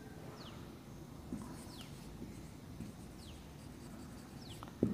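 Marker pen writing on a whiteboard, a faint scratchy stroking, with four faint high chirps falling in pitch, evenly spaced about a second and a half apart, and a sharp tap near the end.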